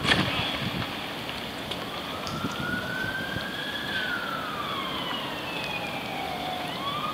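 A siren wailing, slowly rising and falling in pitch over several seconds. At the very start comes a splash as a person falls off a stand-up paddleboard into the water.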